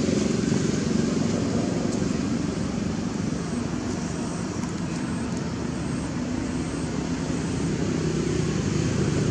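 Steady low rumble of a running engine, a little softer in the middle and rising again near the end.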